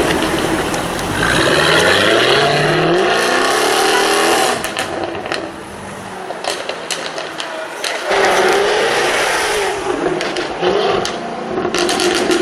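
Jaguar F-Type R's supercharged V8 revving hard, its pitch climbing, then dropping off into a run of sharp exhaust pops and crackles on the overrun. Near the end it revs up again and crackles once more.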